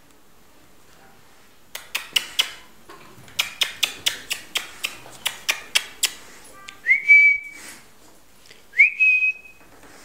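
A run of sharp clicks for about four seconds, then two short whistles a couple of seconds apart, each sweeping up and then holding one steady note.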